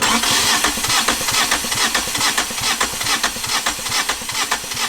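Yanmar 2GM two-cylinder marine diesel cranking on its starter motor, a quick even chug of compression strokes that stops suddenly as the key is released. The engine does not catch, because air is still in the injector lines and the fuel has not yet been bled through.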